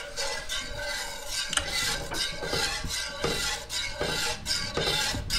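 Wire whisk stirring a warm milk, cream and egg mixture in a frying pan: repeated scraping, swishing strokes of the wires against the pan.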